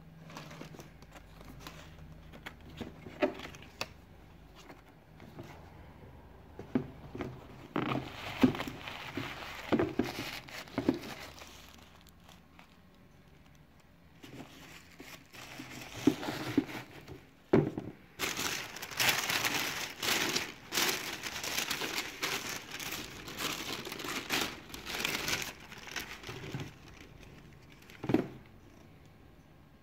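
Crinkly wrapping paper in a shoebox being handled and pulled open, rustling and crinkling in irregular bursts that grow busiest and loudest about two-thirds of the way through, with a few sharp knocks along the way.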